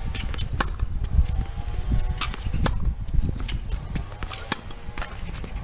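Tennis ball bouncing on a hard court and being struck with a racket: a series of sharp knocks, about a second or so apart, the loudest a little over two and a half seconds in.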